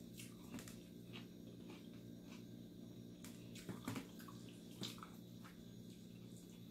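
A person eating by hand, with wet chewing and lip-smacking: a string of soft, sharp clicks, a little louder about four seconds in, over a steady low hum.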